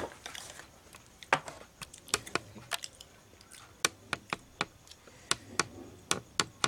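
A plastic water bottle being handled, uncapped and drunk from, with a run of sharp clicks a few times a second.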